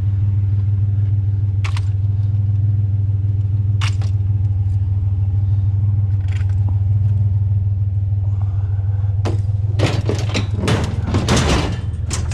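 Truck engine running steadily at a low hum, with a few single clicks early and then a run of clattering metal knocks and rattles near the end, as scrap metal frames are handled and loaded.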